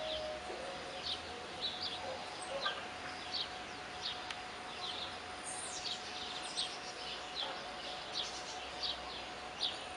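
Small birds chirping: many short, high, down-slurred chirps repeated at irregular intervals over a steady background hiss of outdoor ambience.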